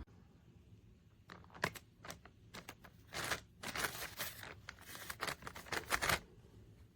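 Soft plastic baby-wipes pack crinkling and rustling as it is handled, in a run of irregular short bursts over about five seconds.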